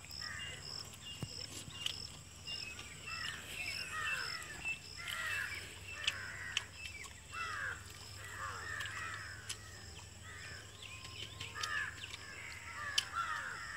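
Birds calling repeatedly in short chattering bursts. A thin, high chirp repeats about twice a second behind them through the first half.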